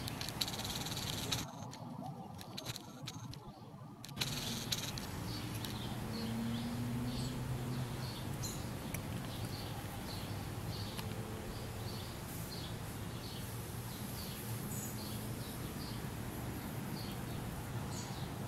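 Outdoor background with a steady low rumble. From about four seconds in, short high chirps repeat irregularly, about two a second. A few soft bumps come in the first seconds.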